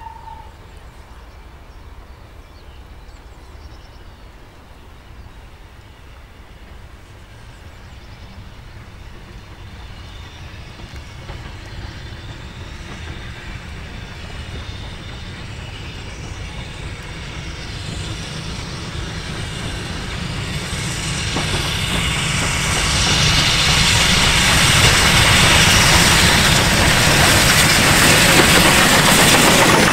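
A Lancashire & Yorkshire Railway 'Pug' 0-4-0 saddle-tank steam locomotive hauling a short goods train as it approaches. Its working and the wagon wheels on the rails grow steadily louder, loudest over the last several seconds as it comes close.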